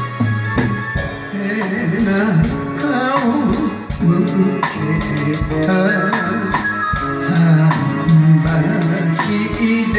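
Enka karaoke backing track with a drum kit played live along with it, the drums keeping a steady beat under the melody.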